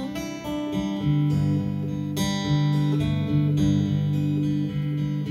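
Acoustic guitar played solo, an instrumental passage of strummed chords with a new strum roughly every second and the notes ringing on between them.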